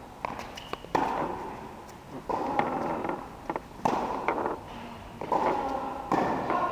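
Tennis balls being struck by rackets and bouncing during a rally, a sharp pop every second or so, each followed by echo in a large metal-roofed indoor hall.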